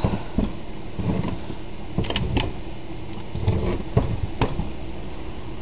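A few light knocks and clicks as a loose Rochester two-jet carburetor is handled and turned over, over a steady background hum.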